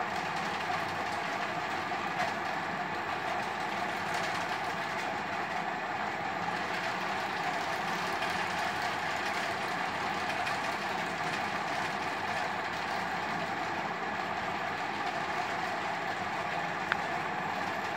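Steady, unchanging background noise with no speech, and one faint click near the end.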